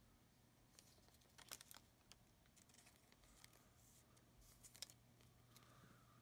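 Near silence with a low steady hum and faint handling of trading cards: a few soft clicks and rustles about a second and a half in and again near five seconds.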